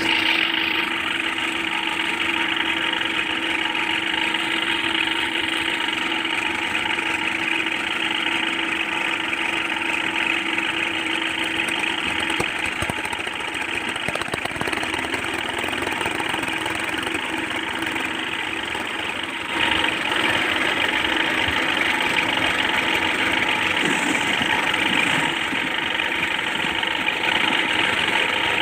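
A construction machine's engine running steadily with a constant hum; it gets louder about two-thirds of the way through.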